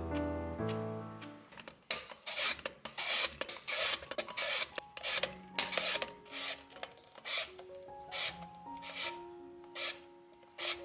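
Carrot and then cucumber being shredded into thin strips with a hand-held blade, a run of short rasping strokes about two or three a second that thin out near the end.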